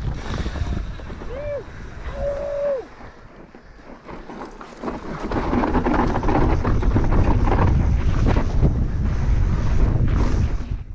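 Wind buffeting a GoPro's microphone as a mountain bike rolls off the top of a steep dirt chute. From about five seconds in comes a loud rush of wind and tyres over loose dirt as the bike drops down the chute.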